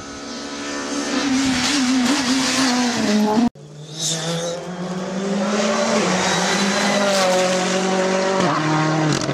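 Rally car engines at full stage pace. One car's engine rises in pitch as it approaches. After an abrupt cut, another car's engine pulls hard, its pitch stepping with gear changes, with a brief high squeal just after the cut.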